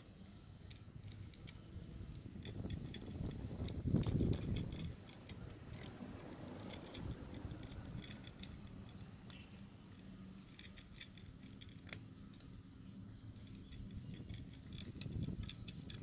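Large tuxedo cat crunching dry kibble, in runs of crisp clicking crunches with short pauses between. A low rumble swells about four seconds in and again near the end.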